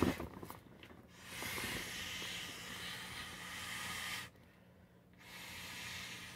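Breath blown by mouth through the valve of an inflatable plastic globe: a long, airy hiss, broken twice by short pauses for breath, about a second in and again about four seconds in.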